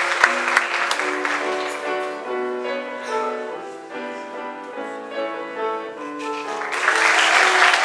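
Audience applause over piano music. The clapping dies away within the first two seconds, leaving the piano playing a melody alone, and returns a little before the end.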